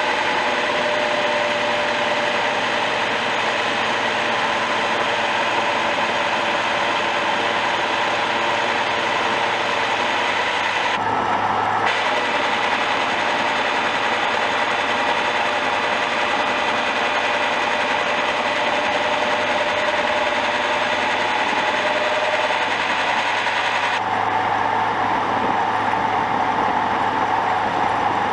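Old milling machine running, its cutter milling a flat surface on a metal barrel clamp: a steady machine hum under a cutting noise. The cutting breaks off briefly about 11 seconds in, then stops near 24 seconds, leaving the machine running.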